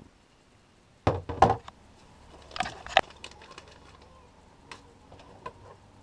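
Knocks and clicks from handling water pipe and push-fit fittings: two loud knocks about a second in, another cluster near three seconds, then lighter clicks.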